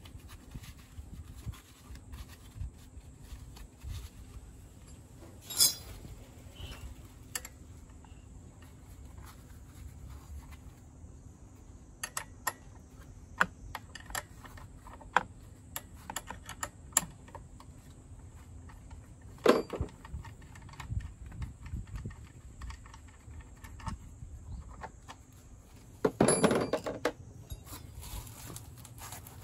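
Scattered metallic clicks and clinks of a small wrench working a bolt loose on a scooter's final-drive gear case, with a louder clink partway through and a short metal clatter near the end.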